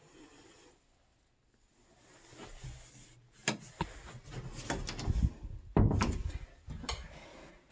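A closet door being handled: a few sharp clicks and knocks, with low thumps loudest about five to six seconds in.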